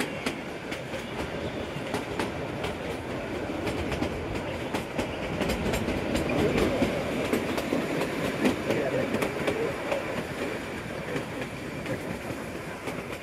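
Narrow-gauge Kalka–Shimla train running, heard from a carriage window: a steady rumble of the coaches with irregular clicks of the wheels over rail joints, growing louder in the middle.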